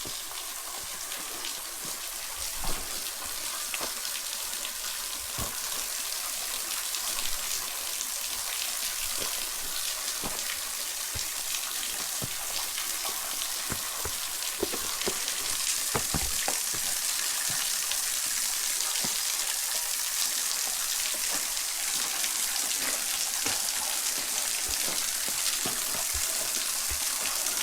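Waterfall splashing in a steady hiss of falling water. It grows a little louder about halfway through, with a few faint knocks.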